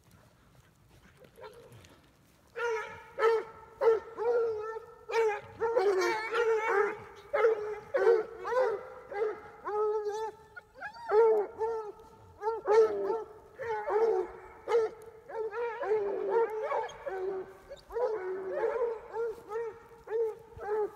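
A pack of hounds baying, several voices overlapping in repeated calls that bend up and down in pitch, starting about two and a half seconds in.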